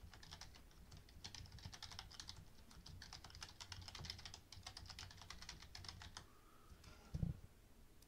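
Faint typing on a computer keyboard, a quick, uneven run of keystrokes that stops about six seconds in. A short, low thump follows about a second later.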